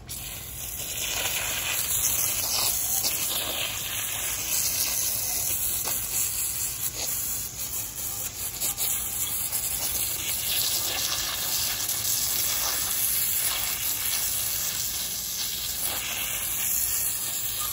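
Garden hose spray nozzle shooting a steady jet of water onto soil and an aluminum anthill casting, washing the dirt off it.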